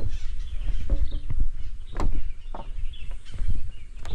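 Footsteps knocking on the planks of a wooden footbridge at an uneven walking pace, over a steady low rumble, with short bird calls in the background.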